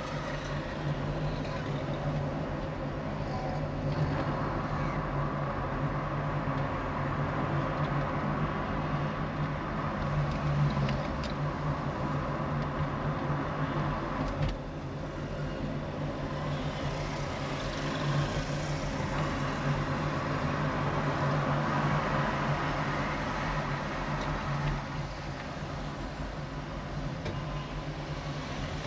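Motor vehicle engine running steadily while driving slowly along a busy city street, amid general street traffic noise.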